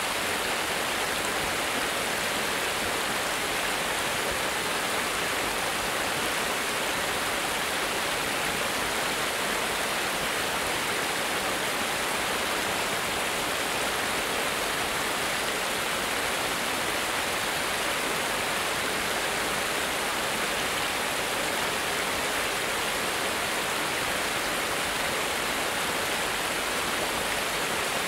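Small cascade of stream water spilling over a low concrete weir: a steady, even rush of water.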